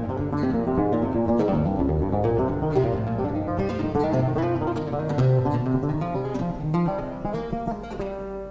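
Background oud music: a solo plucked-string melody of quick, separate notes.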